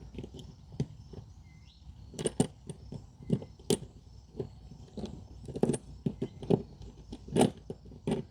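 Irregular light clicks and small metallic ticks as a utility knife trims stray shield-braid strands from the end of an RG400 coax cable, with the cable and connector being handled.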